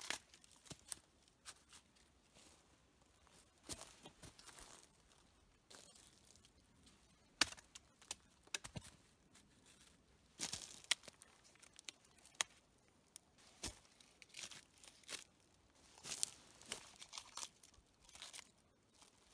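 Dry wooden sticks and poles being handled and pushed upright into the ground, faint, with scattered knocks and clicks over a dry crackling rustle; the loudest knocks come about seven and eleven seconds in.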